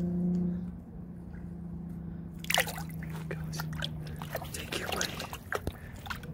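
Water splashing and sloshing close by, with drips, starting about two and a half seconds in, over a steady low hum.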